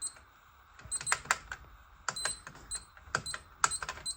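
Fire alarm panel keypad buttons pressed in quick, irregular succession from about a second in: sharp clicks, some with a short high beep. The presses acknowledge the panel's fault messages raised by the unplugged detector loop.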